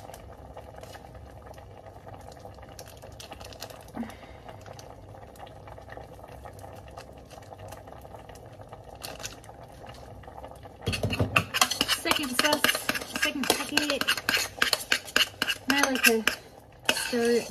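A low steady hum with a few faint clicks at first. From about eleven seconds in there is loud, rapid clattering and scraping of a stainless steel pot and utensil as noodles are stirred and tossed with seasoning.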